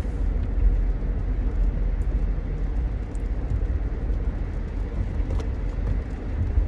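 Car cabin noise from a moving car: a steady low rumble of engine and road.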